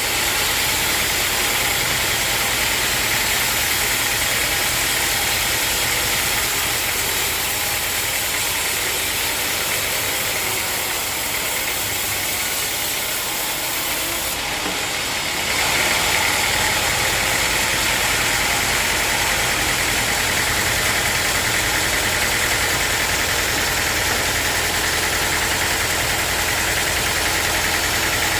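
Sawmill machinery running steadily with a loud, continuous mechanical noise; about halfway through the sound shifts and gets slightly louder.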